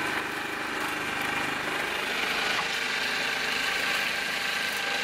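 A small passenger motorboat's engine running steadily while under way.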